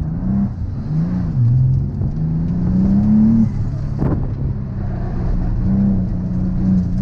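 Twin-turbo Nissan 350Z's V6 engine, with a straight-through true-dual exhaust, pulling hard through an autocross course: the engine note rises under throttle, dips between corners, climbs for over a second, then drops back. A single sharp knock comes about four seconds in.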